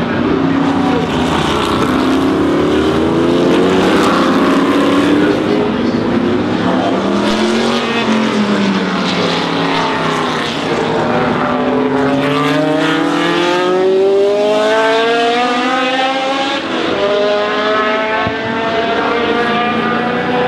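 Historic sports-prototype race car engines at full throttle, several cars in turn accelerating past. The engine note climbs in pitch, falls away about eight seconds in, then climbs again through the gears in the second half.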